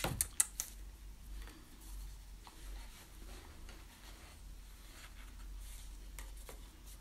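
A quick cluster of sharp taps and clicks as a small cardboard gift box is handled, then soft rubbing and scraping as the lid is worked off and a suede pouch is drawn out of the box.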